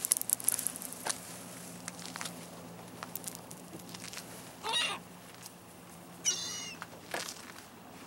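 Gulls taking off with a quick flurry of wingbeats in the first second. Two short gull calls follow, about five and six and a half seconds in.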